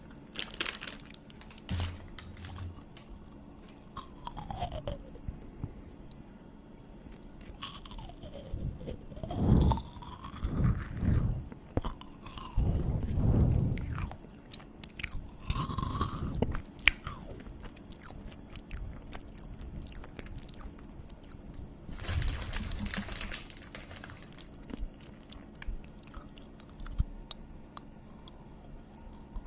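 A person chewing and biting food close to the microphone, with crunching and wet mouth clicks coming in uneven bursts.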